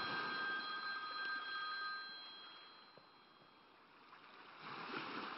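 A mobile phone ringtone ringing: a steady electronic tone that sounds for about two and a half seconds and then dies away. A faint hiss follows near the end.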